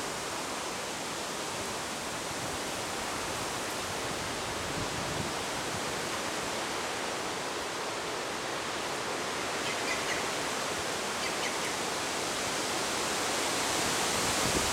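Steady rushing wind through lakeside reeds, with a few faint bird chirps about ten seconds in.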